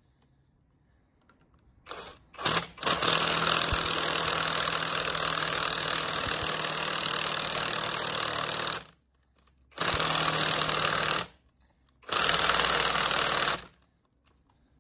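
Cordless power driver spinning bolts in through a long extension on a Mazda MX5 engine block. After a couple of short blips it runs for about six seconds, then twice more for a second or two each.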